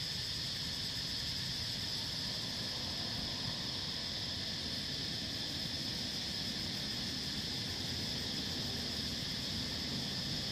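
A steady, high-pitched insect drone: a chorus of forest insects buzzing continuously at an even level.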